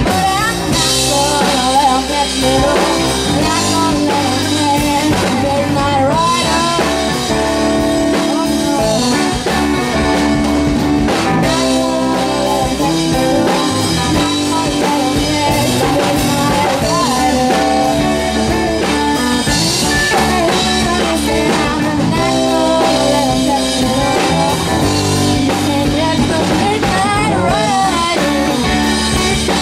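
Rock band playing live: electric guitar, keyboard and drum kit with singing.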